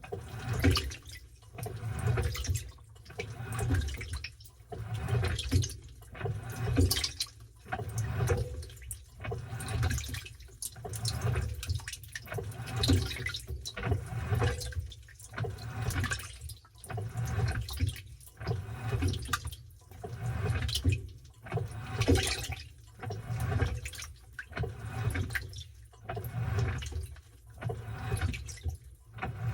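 Washing machine in its wash cycle, churning a load of towels in water. A splashing swish swells and fades about every one and a half seconds with each turn of the wash, over a steady low motor hum.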